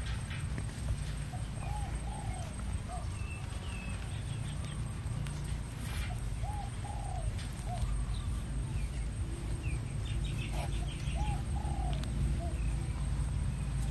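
A dove cooing a short phrase of three or four soft arching notes, heard three times, with small birds chirping now and then over a steady low rumble.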